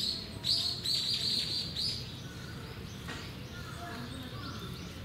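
Small bird chirping: a quick run of short high chirps, about four a second, for the first two seconds, then a few fainter chirps near the end.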